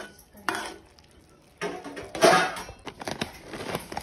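A metal spoon clinking and scraping in a metal cooking pot as mushrooms are stirred, with dishes being handled. There is a sharp clink about half a second in, a louder clatter a little after halfway, then a run of small clicks.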